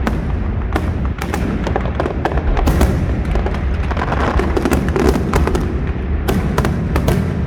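Large aerial fireworks display going off: a continuous deep rumble of shell bursts with sharp bangs and crackles layered over it, several a second.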